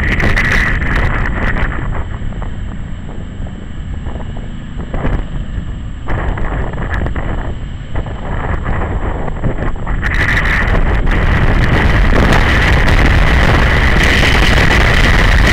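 Wind rushing over the microphone of a camera on a moving BMW G 650 GS Sertao motorcycle, with the bike's single-cylinder engine running underneath. It eases for a stretch in the middle, then grows louder and stays loud from about two-thirds of the way in.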